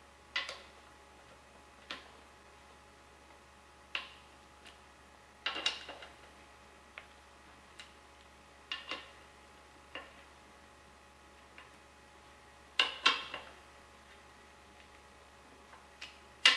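Irregular sharp metallic clinks of hand tools on a transmission case, about a dozen over the span and spaced a second or two apart, each with a short ring. The loudest come near the end, as a ratchet wrench is set onto a bolt of the front bearing retainer.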